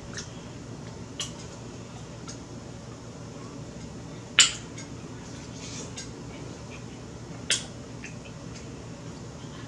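Close-miked eating of boiled shrimp: scattered sharp clicks and smacks as shrimp is picked out of a glass baking dish and bitten, the loudest about four and a half seconds in and another near seven and a half seconds.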